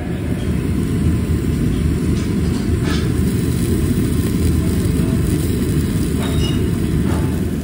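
Steady low roar of a tabletop yakiniku grill and its exhaust, with a few faint pops from offal sizzling on the wire grate.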